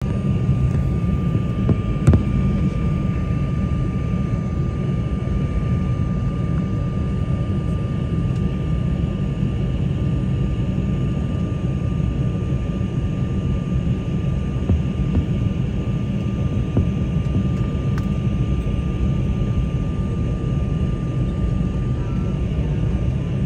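Cabin noise of an Embraer 190 taxiing, heard from inside: the steady rumble of its turbofan engines with a thin, steady high whine over it. A single sharp click about two seconds in.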